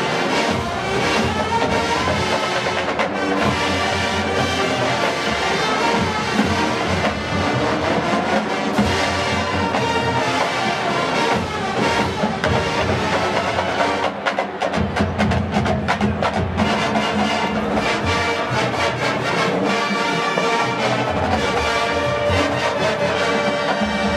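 Full marching band playing: brass section and drumline together. About halfway through, the drumline's sharp strokes become more prominent in an even, driving rhythm.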